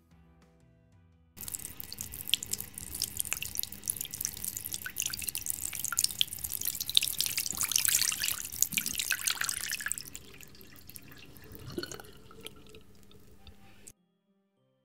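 Water running from a sink tap and splashing over hands being rinsed in the basin. It starts suddenly about a second and a half in, is loudest in the middle, thins to scattered drips after about ten seconds, and cuts off abruptly near the end.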